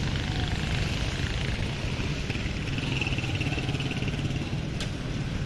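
Street traffic: a steady low rumble, with a motorcycle passing close by through the middle. A single sharp click comes near the end.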